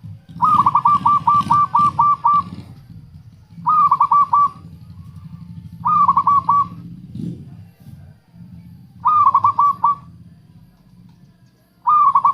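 Zebra dove (perkutut) calling: five bouts of quick, rapidly repeated cooing notes, the first a long run of about nine notes and the rest shorter runs of about four, used as a lure call. A steady low hum runs underneath.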